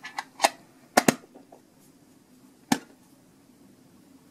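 Small printed metal candy tin handled in the hands, giving a few sharp metallic clicks and taps of the tin and its lid: a quick pair about a second in, the loudest, and a single one near three seconds.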